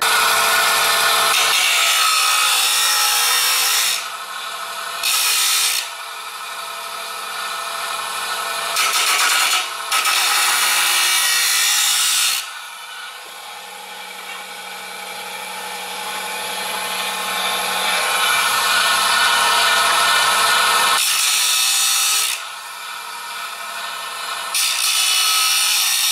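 Abrasive cut-off saw running steadily, its disc grinding into a galvanized steel pipe in about six loud, harsh spells of one to four seconds, with the motor's hum carrying on between them. It is cutting slots into the pipe.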